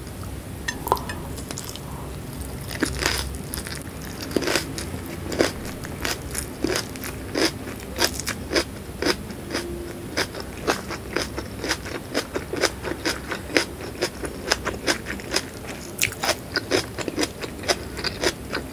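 Close-miked crunching and chewing of whole raw shallots in sambal: sharp, crisp crunches, a few each second, with wet mouth sounds.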